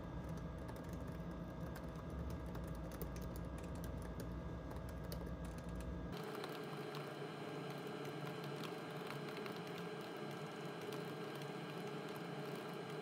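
Typing on a laptop keyboard: quick, light, irregular key clicks. A steady low hum sits under the clicks until about halfway through, then cuts off suddenly.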